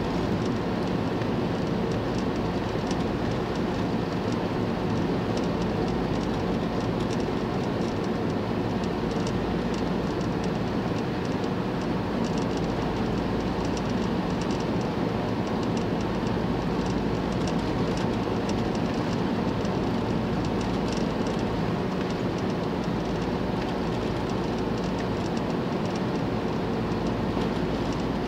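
Steady road noise inside a moving van's cabin: engine and tyres at cruising speed.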